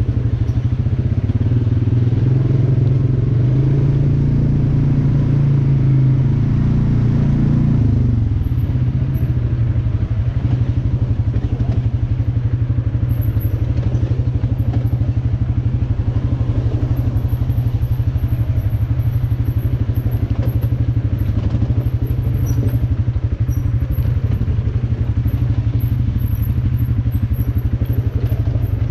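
Off-road vehicle engine running continuously with a steady low drone; the engine note rises a couple of seconds in and falls back about eight seconds in.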